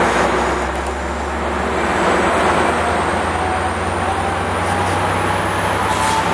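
Amtrak passenger cars rolling past on the tracks: a steady, loud rumble of steel wheels on rail, with a faint high whine slowly rising in pitch.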